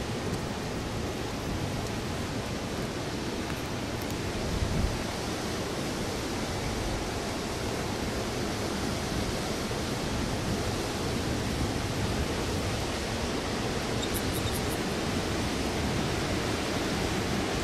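Steady rush of a waterfall's falling water, even and unbroken, with a brief low bump about five seconds in.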